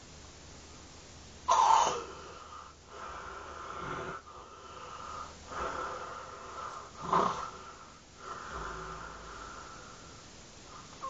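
A woman snoring: a sudden loud gasp about a second and a half in as her breathing starts again, then several slow, wheezy snoring breaths with a whistling tone.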